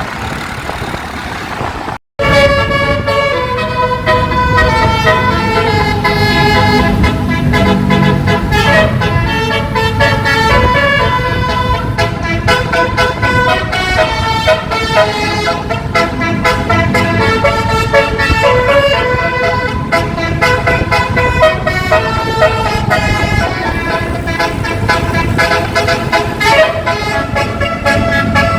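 A Basuri 12-note telolet horn on a bus playing a fast multi-tone melody through roof-mounted trumpet horns. It starts abruptly about two seconds in, after a steady rushing noise and a brief dropout.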